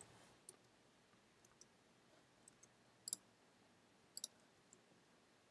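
Near silence with a few faint, scattered computer clicks, the loudest a quick pair about three seconds in and another pair about four seconds in.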